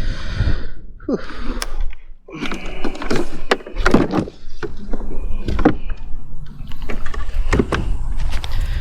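Wind rumbling on the microphone, with a scatter of sharp clicks and knocks from close handling of gear. There is a short falling squeak about a second in.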